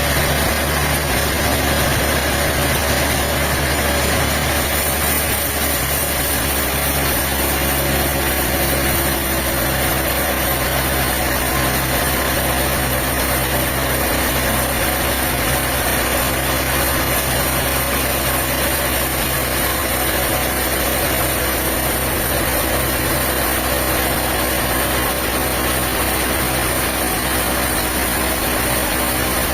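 An engine running steadily at an even speed, with a dense mechanical din.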